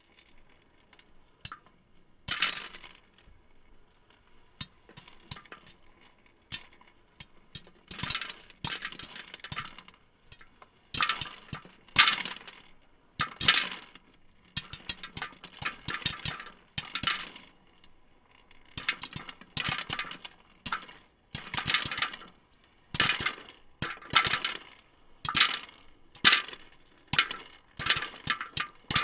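Popcorn cracking and crunching. A few sharp single pops come first, then rough crunchy bursts about once a second.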